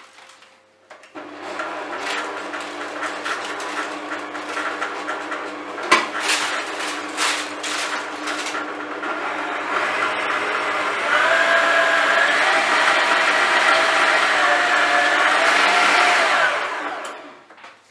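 Electric stand mixer running as it mixes cookie dough, with a few sharp clicks in the first half as chopped walnuts drop into the bowl. About eleven seconds in it goes up a speed and runs louder, then it is switched off near the end.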